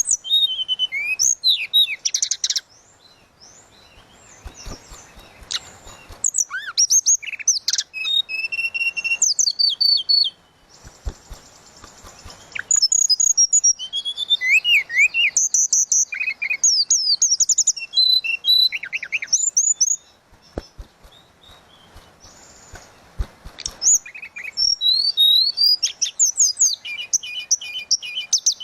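A tledekan laut songbird singing vigorously in bursts of clear, flute-like whistles, rising and falling glides and quick trills, broken by a couple of short pauses.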